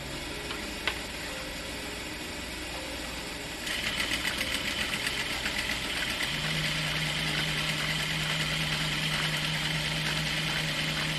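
Juki industrial sewing machine stitching a fabric dish cloth. It starts about a third of the way in, pulsing at first, then runs steadily, with a low hum joining about halfway.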